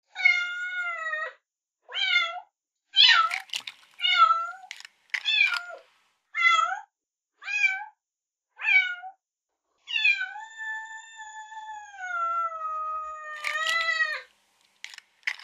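Kitten meowing: about eight short, high-pitched meows in a row, then one long meow of about four seconds that slowly falls in pitch, with a few sharp clicks near the end.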